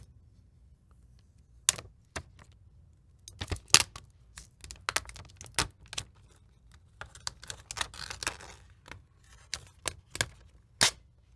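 Scattered sharp clicks and taps of a Samsung Galaxy Z Fold 3 being handled, with its black protective film sheets being pulled off and set down, and a soft plastic rustle a little past the middle.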